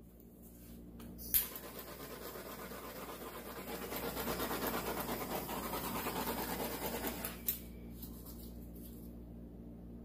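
Handheld butane torch lit with a sharp click about a second in, its flame hissing steadily for about six seconds. It cuts off with another click.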